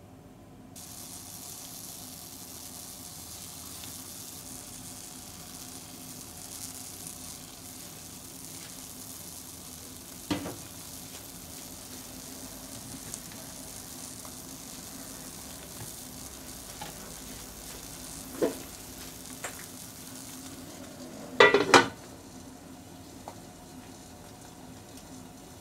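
Egg white sizzling in hot oil in a nonstick frying pan, starting suddenly about a second in as it is poured into the silicone mould, with a few short knocks along the way. Near the end a loud clatter as a glass lid is set on the pan, after which the sizzle is muffled.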